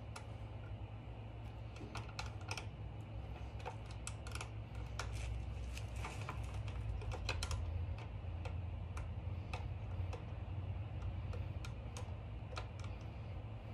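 Light metallic clicks and ticks of a hand tool and terminal hardware as cables are bolted onto a motorcycle battery's terminals. They come irregularly, in short clusters, over a steady low hum.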